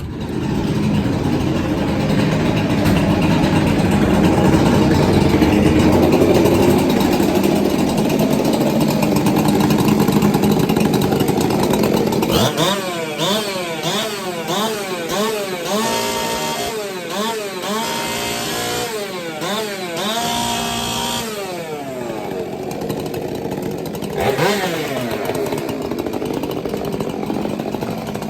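A ported Stihl MS 462 chainsaw running hard. About halfway through, the throttle is blipped over and over, so the pitch swings quickly up and down for several seconds before it settles again. The rev limiter is hitting hard at the top of the revs.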